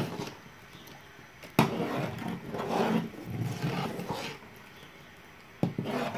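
A steel ladle stirring kheer in a steel cooking pot, knocking sharply against the pot about one and a half seconds in and once more near the end.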